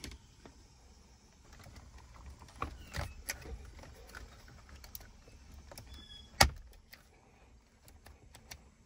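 Scattered clicks and knocks of hands working plastic centre-console trim and a dash switch panel, with one sharp knock about six seconds in louder than the rest.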